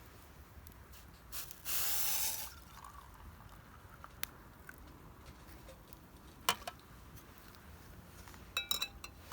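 A brief hiss lasting under a second, like a spray or a pour, then a single sharp click and, near the end, a quick run of light ringing clinks.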